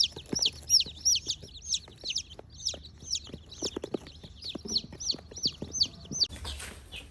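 Young croiler chicks peeping, a long run of short high peeps, several a second, with scattered light taps and knocks among them. The peeping stops shortly before the end, giving way to a brief rustling.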